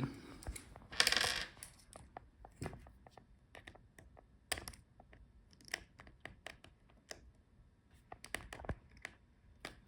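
Small sharp clicks, taps and scrapes of a screwdriver working a small Phillips screw out of a laptop's battery, with a short rustling scrape about a second in.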